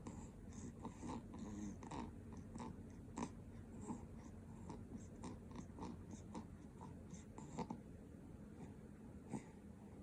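Two-week-old newborn's faint, irregular snuffling breaths and small grunts.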